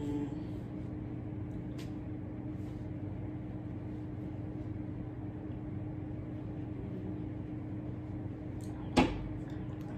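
Steady mechanical hum in a small room, with a faint constant tone and no speech. One sharp tap about nine seconds in.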